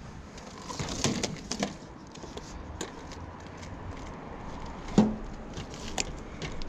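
Scattered clicks and knocks of objects being handled, with a few quick ones about a second in and a louder knock about five seconds in.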